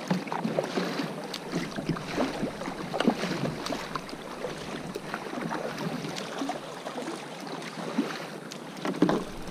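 Sea water splashing and lapping against a plastic sit-on-top kayak as it is paddled along, with irregular small splashes from the paddle blade and the bow wash.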